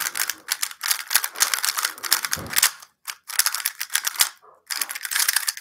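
Cubicle GTS3-series 3x3 speedcube being turned very fast in a timed solve: a rapid, dense clatter of plastic pieces clicking, with two short breaks about three and four and a half seconds in.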